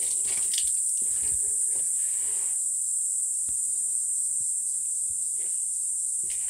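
A steady high-pitched insect chorus, with irregular footsteps scuffing underneath.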